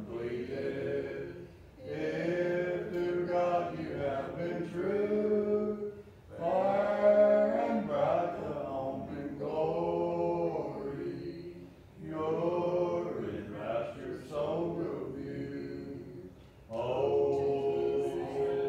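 Congregation singing a hymn a cappella, with no instruments. The voices sing in phrases of about four to six seconds, each followed by a brief pause for breath.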